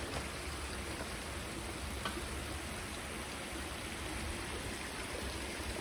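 Water flowing over a dam, a steady rushing noise.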